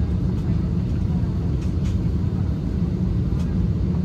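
Steady low cabin rumble inside an Airbus A320-214 on the ground before takeoff, with a few faint ticks.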